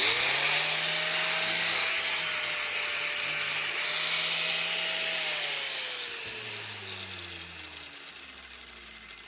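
DeWalt angle grinder motor running at full speed with a steady whine, now that new carbon brushes are fitted. It is switched off about five seconds in and spins down, its pitch falling slowly.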